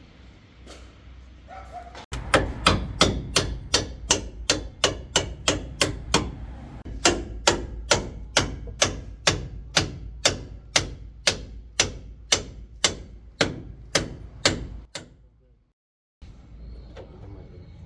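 A hammer striking metal in a steady run of about thirty blows, two to three a second, during truck leaf-spring pin and bushing work. The blows stop abruptly near the end.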